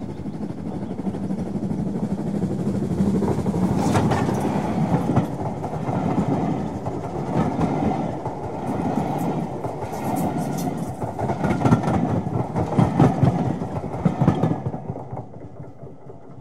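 A train passing, its wheels clattering over the rail joints, dying away about two seconds before the end.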